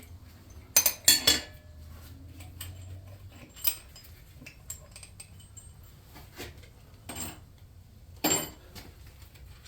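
Metal hand tools and thread-repair tooling being handled and set down: a series of sharp metallic clinks and knocks, the loudest pair about a second in and another near the end.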